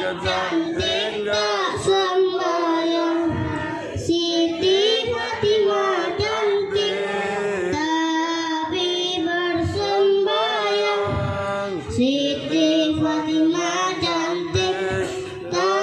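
A young boy singing solo into a microphone, a melodic chant with long held notes.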